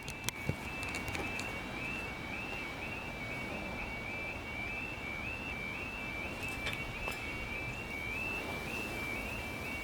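Railway level crossing alarm sounding as the barriers come down: a high warbling two-tone signal that repeats about twice a second. It warns that a train is approaching the crossing.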